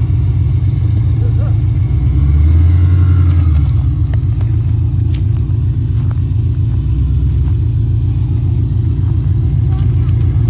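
Supercharged LSA V8 in a 1971 Chevelle running with a steady low rumble as the car moves slowly, with a short louder surge of the engine a couple of seconds in.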